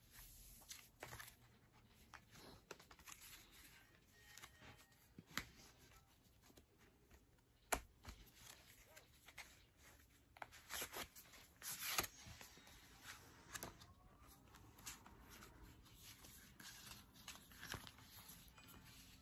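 Hands handling a photobook album and its cardboard case: faint rustling, taps and page flips, with a few sharp clicks, the loudest a little before 8 s in and another at about 12 s.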